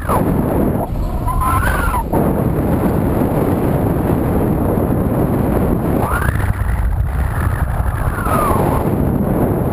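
Wind buffeting the microphone of a bicycle-mounted camera at riding speed, a steady heavy rumble. A faint whistling tone rises and falls, briefly about a second in and again over a couple of seconds past the middle.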